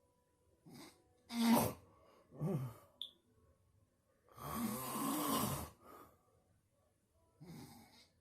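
Loud snoring: about five snores of uneven length at irregular gaps, the loudest about one and a half seconds in and the longest, over a second, midway.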